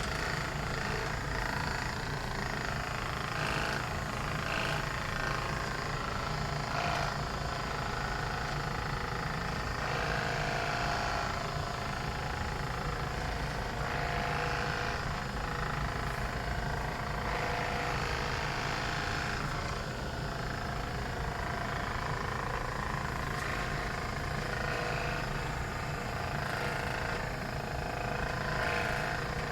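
Steady low rumble of a running vehicle, with a faint, muffled haze of sound above it.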